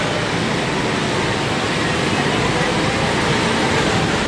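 Steady street traffic noise of cars and motorbikes, an even din with no single event standing out.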